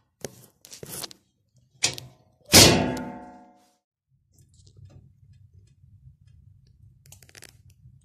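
Iron parts of a wood-burning stove being handled: a few light clicks and a scrape, a sharp knock, then one loud metal clang that rings and fades over about a second. A low, steady rumble follows in the second half.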